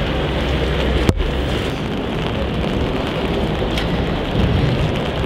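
Heavy rain falling on a wet street and on an umbrella held over the microphone, with wind rumbling on the microphone.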